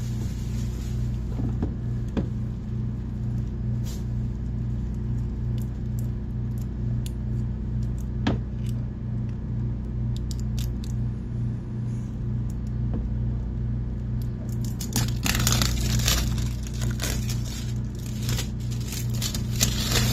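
A steady low hum throughout, with a few light handling clicks. About three-quarters of the way in, plastic shrink-wrap starts crinkling and tearing as it is peeled off a tablet's retail box.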